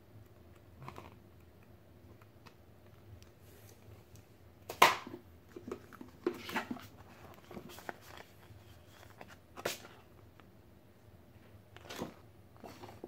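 Paper handling: board game rulebook pages being flipped and thick printed reference sheets lifted and shuffled, in several separate rustles and flaps, the loudest about five seconds in.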